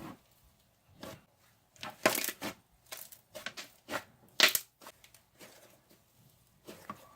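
Soft, sizzly slime being squished and stretched by hand: irregular crackling squelches and pops, loudest about two seconds in and again near the middle.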